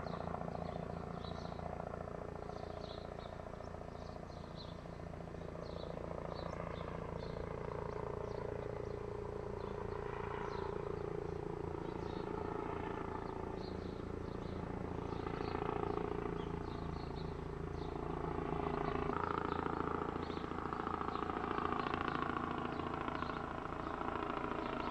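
A light helicopter flying overhead, its rotor beating steadily. It grows louder from about the middle onward as it comes nearer.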